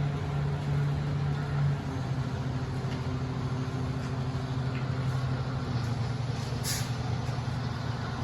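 Heavy engine of construction equipment at a concrete pour running steadily, its pitch stepping down a couple of times. A short, sharp hiss of air comes about two-thirds of the way through.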